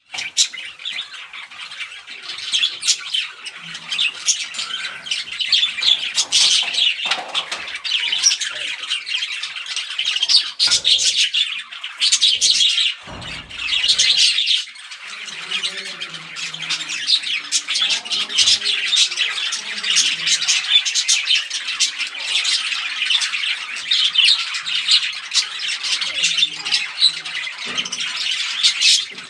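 Budgerigars squawking and chattering continuously in rapid, high-pitched calls, the harsh squawks of rival birds fighting over a female.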